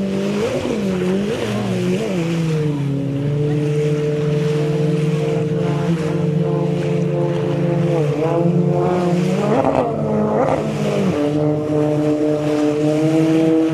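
Motorized watercraft engine running, its pitch dipping and rising several times in the first two seconds and again from about eight to eleven seconds in, and holding steady in between.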